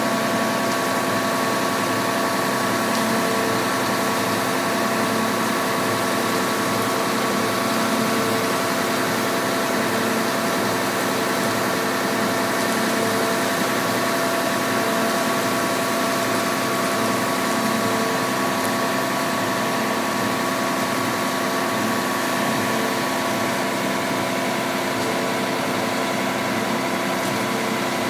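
Heavy diesel engines of a concrete mixer truck and a truck-mounted concrete pump running steadily at constant speed, a dense unchanging hum.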